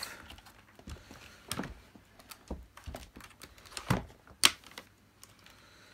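Scattered plastic clicks and knocks from the Dyson DC15 Animal ball vacuum being handled, with two louder sharp knocks about four seconds in; the motor is not running.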